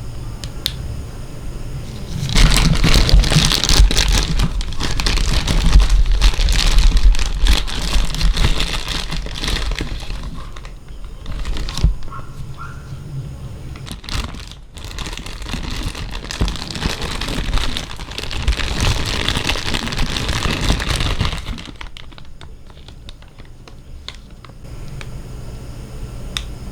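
Plastic packaging crinkling and crackling as it is handled and opened, in dense bouts. It grows loud about two seconds in and dies down near the end.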